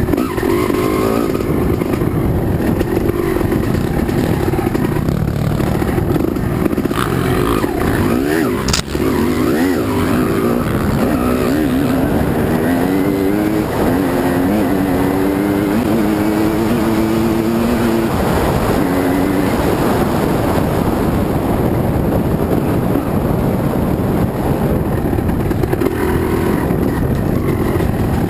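Dirt bike engine running hard through a hare scramble course, its pitch rising and falling with throttle and gear changes, with a brief dip and a sharp click about nine seconds in.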